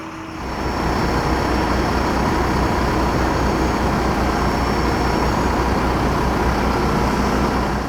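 Work truck's engine running steadily at close range, a loud, even low rumble that starts abruptly just under half a second in.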